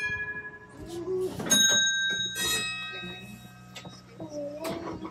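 Heritage tram's bell rung: two bright strikes about a second apart, each ringing on briefly, while the ring of an earlier strike fades at the start. A steady low hum runs underneath.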